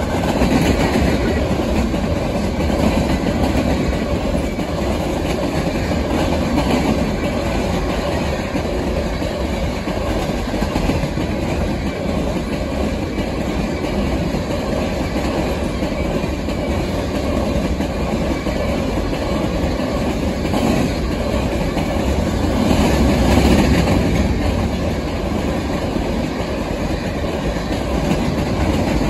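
Empty ore hopper cars of a long freight train rolling past at speed, a steady wheel-on-rail rumble that swells louder about three-quarters of the way through. Wind buffets the microphone.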